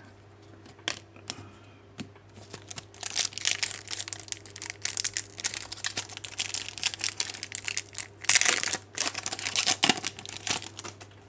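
Trading-card pack wrapper crinkling and tearing as it is opened and handled, after a few light taps in the first couple of seconds; the crinkling is loudest about eight seconds in.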